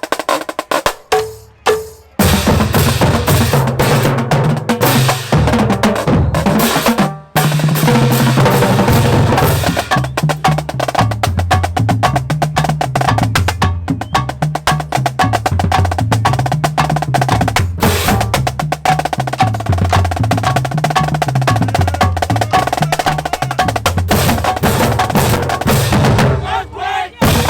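Marching band drumline playing a battle cadence: snare rolls and rapid hits over a repeating low bass-drum pattern. A few scattered hits open it, the full line comes in about two seconds in with brief cut-offs along the way, and it stops just before the end.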